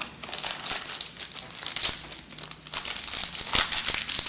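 Wrapper of a 2008 Topps Moments & Milestones baseball card pack being torn open and crinkled by hand, an irregular crackling that gets louder near the end.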